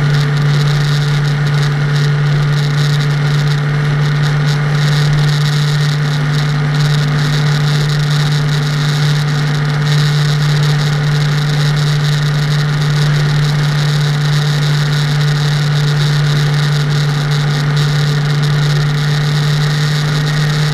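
Motor vehicle cruising at a steady speed: an even, low engine drone over steady road noise, with no change in pace.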